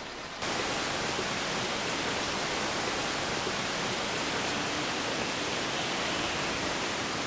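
A steady, even hiss that starts suddenly about half a second in and holds at one level throughout.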